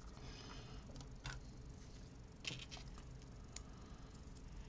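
A few faint, sharp clicks of plastic Lego pieces being handled and pressed together on a baseplate.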